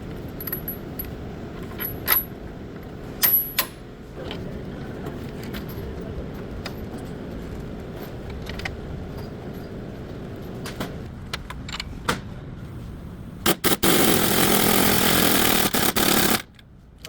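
Metal tools clinking and tapping against car parts over a steady low background, then a loud, even rush of noise for about three seconds near the end that stops suddenly.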